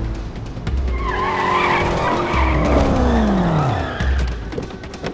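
Car tires squealing as police cars skid to a stop, the screech sliding down in pitch and dying away about four seconds in.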